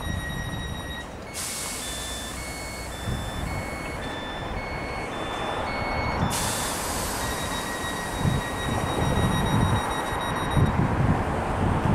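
Electronic door warning of a stationary Class 313 electric multiple unit. A steady high tone gives way about a second in to alternating two-note beeps for about five seconds, then the steady tone returns, all over a hiss.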